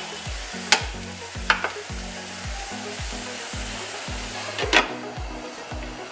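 Paneer-tomato dosa batter sizzling steadily in a hot nonstick pan, with a few light taps in the first couple of seconds. Just before the end a glass lid is set on the pan with a sharper clack.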